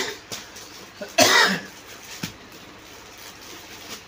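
A person coughs, sharply at the start and again about a second in, over soft crinkles of the clear plastic packet wrapping a new T-shirt.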